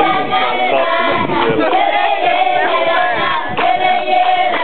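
A group of children singing together in chorus, with several long held notes.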